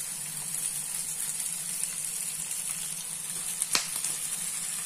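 Oil sizzling steadily in a frying pan of onions, peanuts and green chillies as dry flattened rice (poha) is poured in from a steel bowl. A single sharp metallic tap comes near the end, as the bowl knocks the pan.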